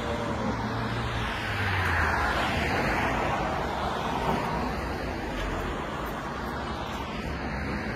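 Road traffic: a car passing, its sound swelling about two seconds in and then fading into steady traffic noise.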